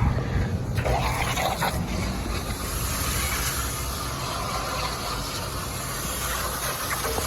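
Water from a hose spraying into an air-conditioning condenser coil, a steady hiss that starts about a second in and cuts off suddenly near the end.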